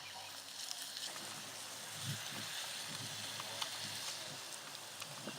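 Meat cooking over an open fire: a steady sizzling hiss with scattered small crackles.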